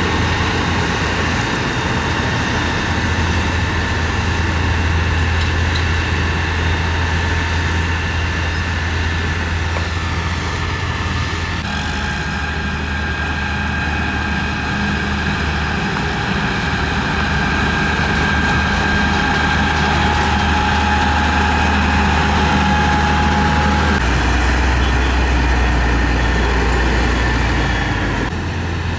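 Diesel engine of heavy road-construction machinery running steadily, with a low hum and a steady high whine; the engine sound shifts abruptly about twelve seconds in and again about twenty-four seconds in.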